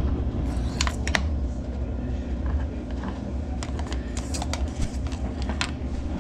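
Scattered small clicks and scrapes of a front-loading washing machine's lint-clogged drain filter being handled and cleaned by hand, over a steady low rumble.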